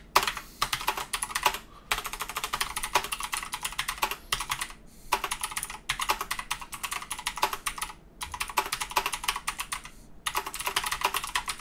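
Typing on a computer keyboard: rapid key clicks in runs of a second or two, broken by several short pauses.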